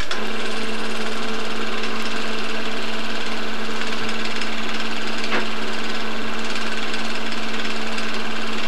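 Home-movie film projector running: a steady mechanical hum and whir, with one faint click about five seconds in.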